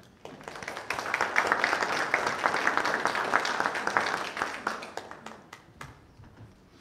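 A small roomful of people applauding, building up within the first second and dying away about five seconds in.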